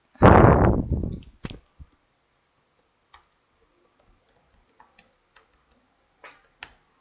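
Scattered light clicks of computer keyboard keys being typed, a few at a time, with a short loud rush of noise lasting under a second near the start.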